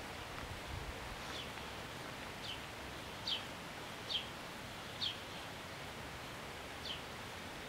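A bird repeating a short, high, downward-sliding call about six times at irregular intervals of roughly a second, over a steady outdoor hiss of wind through leaves.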